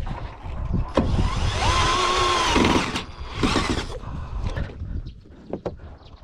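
A handheld power tool's motor runs in a burst of about two seconds, its whine rising and then holding before it stops, followed by a second short burst. Scattered knocks and clatter of work around them.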